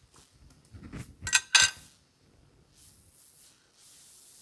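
Noodles stirred in a pot with wooden chopsticks, then two sharp clacks of the chopsticks against the pot about a second and a half in.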